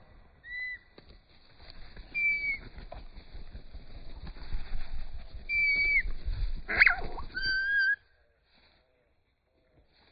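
Small songbirds giving clear whistled notes, one at a time, some gliding slightly up or down, over a low wind-like rumble. A brief loud rustle comes about seven seconds in, and the sound falls away shortly before the end.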